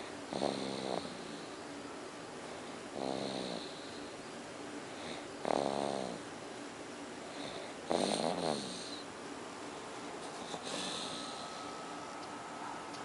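A nine-month-old baby boy snoring: four snores, one every two to three seconds, then a few seconds without one near the end.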